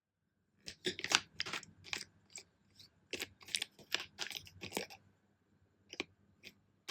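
Plastic water bottle cap being twisted: two quick runs of sharp crackling clicks, then two faint clicks near the end.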